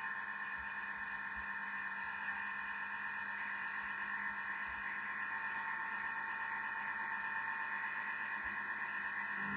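Thermomix TM6 motor running its butterfly whisk at speed 3 and beating egg whites into meringue: a steady whirring whine, with a few faint light ticks over it.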